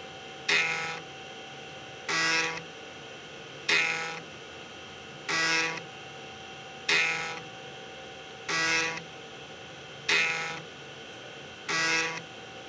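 IBM PS/2 Model 30's 3.5-inch floppy drive running a full-stroke seek test: the head stepper motor buzzes for about half a second each time it sweeps the head from one end of the disk to the other, eight times at an even pace of about one every 1.6 seconds.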